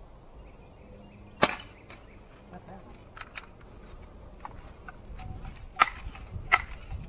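Crosman 760 Pumpmaster multi-pump air rifle firing once, a single sharp crack about a second and a half in. A few small clicks follow, then the pump lever clacking shut twice near the end as the rifle is pumped up for the next shot.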